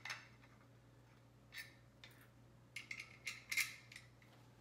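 Faint clicks and rustles of small rifle-stock hardware being handled, a few single ones and then a cluster about three seconds in, over a faint steady low hum.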